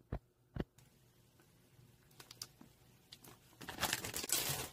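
Two soft low thumps near the start, then light crinkling and clicking. From about three and a half seconds in, water boils hard in a pot with a loud, bubbling hiss.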